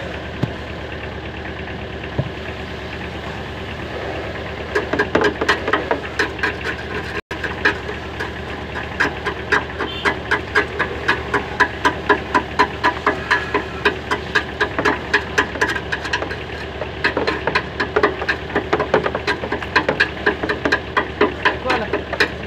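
Rapid metallic clicking, about four clicks a second, starting about four seconds in, from hand work at an auto rickshaw's rear brake drum and wheel hub. A steady engine-like hum runs underneath.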